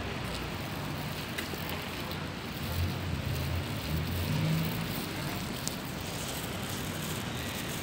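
Steady outdoor background noise with a low hum or rumble that swells from about three to five seconds in.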